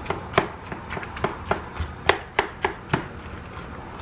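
Red plastic spoon knocking and scraping against a large clear mixing bowl while stirring cooked elbow macaroni with cubed cheddar and cream cheese: a run of irregular clicks, about three a second, that stops about three seconds in.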